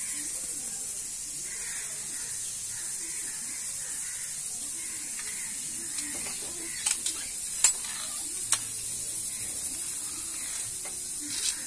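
A steady high hiss with a handful of sharp taps, clustered about seven to eight and a half seconds in and once more near the end. The taps come from a thin stick and a wooden board knocking against a concrete floor and wall.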